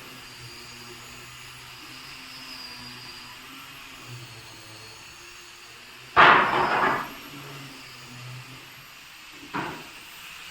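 Workshop machinery humming low and steady, broken about six seconds in by a loud rough knock-and-scrape lasting about a second, and by a shorter knock some three seconds later.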